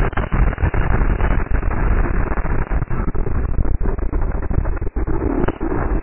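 Racing kart engine running at speed, heard through the kart's onboard camera microphone: loud and harsh, a dense noise with many brief dropouts, one deeper about five seconds in.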